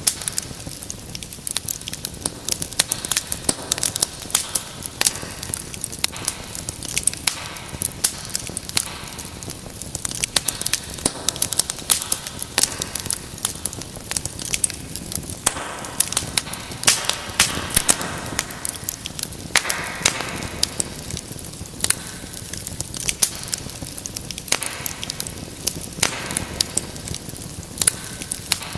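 Wood fire crackling steadily: many sharp irregular pops and snaps over a soft rushing hiss of flame.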